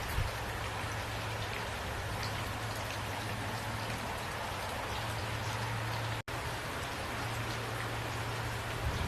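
Steady rainfall, an even hiss with scattered distinct drop ticks, over a low steady hum. The sound cuts out completely for an instant about six seconds in.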